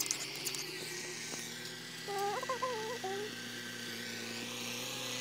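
Distant tractor engine running steadily as it works the field, a constant droning hum. About two seconds in, a short pitched call steps up and down in pitch for about a second.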